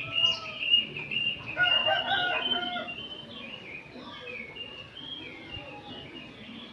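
Many oriental magpie-robins singing at once, a dense overlapping chorus of short whistled and chattering phrases. From about one and a half seconds in, a louder, lower call with several pitches stands out for about a second.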